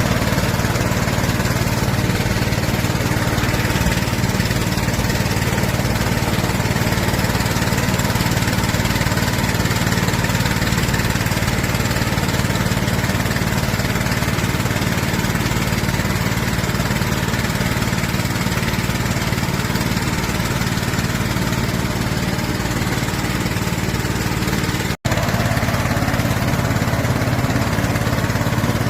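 Small engine of a 300-litre orchard spray machine running steadily at a constant speed, with a brief break near the end.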